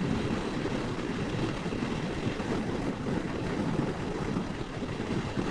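Steady wind rush and running noise of a Moto Guzzi V85 motorcycle underway, a low, even rumble with no change through the stretch.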